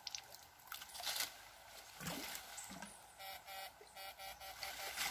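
A homemade backpack electrofishing shocker giving off rapid runs of short, high pulsed beeps, about five or six a second, in two brief bursts past the middle, as it fires current into the water. Water sloshes around the wading operator's legs.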